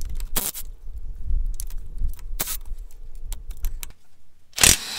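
Cordless power tool running on a 13 mm bolt of a front axle disconnect housing, a steady motor hum for about three and a half seconds with scattered metallic clicks and rattles. About four and a half seconds in comes a short, loud burst of noise.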